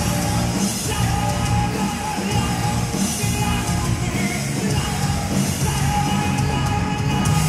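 Live rock band playing electric guitar, bass guitar and drums, with a lead singer singing into a microphone.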